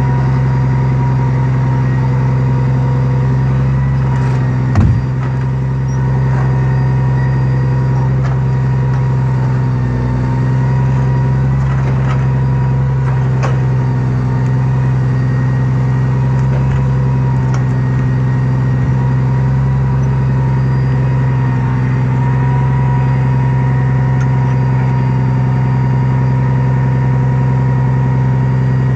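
Log truck's engine running steadily while its knuckleboom loader lifts and stacks big logs, with a single knock about five seconds in.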